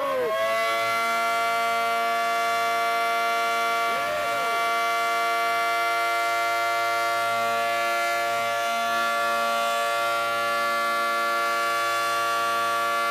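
Civil defense warning siren, sounded for a tornado warning: it finishes winding up about half a second in, then holds one steady tone.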